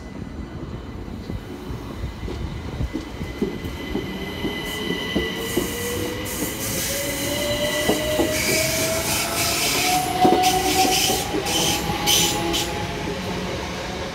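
Class 377 Electrostar electric multiple unit pulling away: its traction motor whine rises steadily in pitch as it accelerates, over wheels clicking on the rails. From about halfway, high-pitched wheel noise and squeal build, and it is loudest about two-thirds through.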